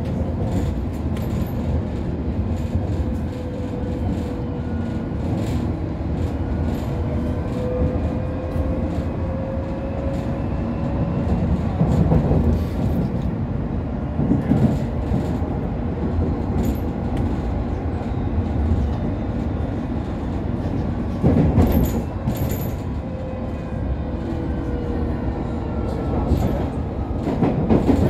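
London Underground District line train running between stations, heard from inside the carriage: a steady rumble of wheels on the track with a faint whine that slowly shifts in pitch. Several louder clattering stretches come as the wheels pass over rail joints.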